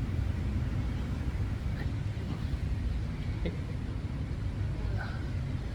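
Steady low rumble of wind buffeting the microphone of a moving bicycle, with no distinct events.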